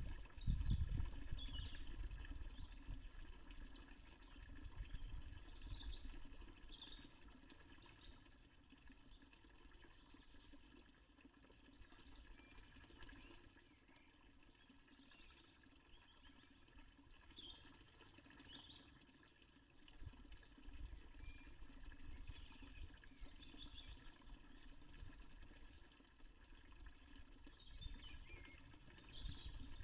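Small birds chirping and tweeting in short, scattered calls over the faint running water of a fountain, with a low rumble that comes and goes, loudest in the first few seconds.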